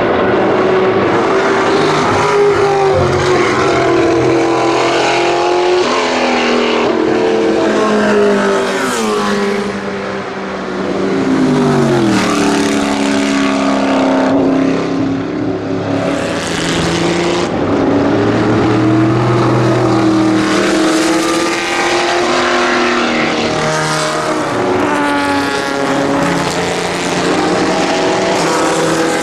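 1989 Aston Martin AMR1 Group C race car's 6-litre V8 at racing speed, its pitch climbing under acceleration and falling back through gear changes and braking, over and over. The engine is loud throughout.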